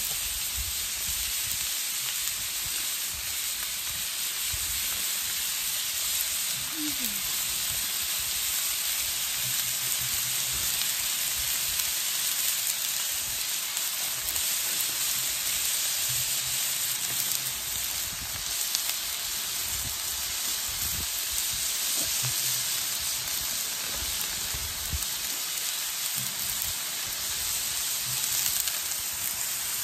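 Ground breakfast sausage and sausage links frying on a hot, oiled 28-inch Blackstone flat-top griddle, a steady sizzle.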